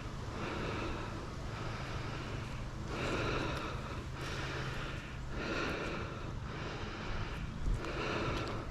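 A climber breathing hard and close to the microphone, with steady, rhythmic breaths about once every second or so, from the exertion of climbing.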